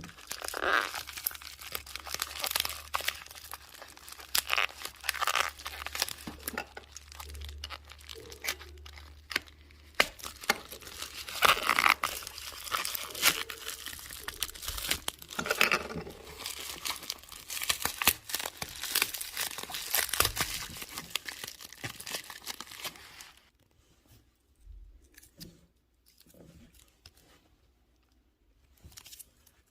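Dense crinkling and tearing sounds, many small crackles close together, which thin out to a few scattered ones about 23 seconds in.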